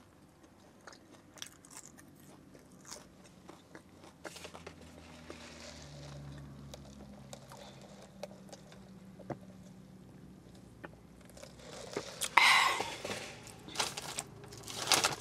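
Close-miked chewing and crunching of french fries, with many small mouth clicks. Near the end, loud rustling of a paper takeout bag.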